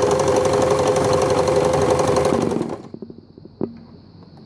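Empisal Dressmaker 270D sewing machine running at steady speed, stitching a honeycomb stitch, then stopping about three seconds in, followed by a few light clicks.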